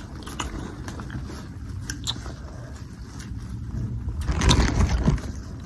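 Eating sounds from a seafood boil: crab legs being cracked and picked apart in a plastic boil bag, with small clicks, crinkling and chewing. A louder stretch of rustling and cracking comes about four seconds in.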